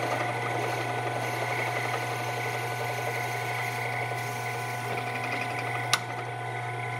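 Benchtop drill press running steadily, its bit enlarging a hole in a small part held in pliers: a constant motor hum with steady higher tones. There is a single sharp click about six seconds in.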